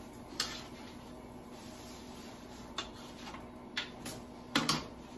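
Spatula tapping and clicking against a nonstick griddle pan while pancakes are flipped and lifted out: a few scattered sharp taps, the loudest pair near the end.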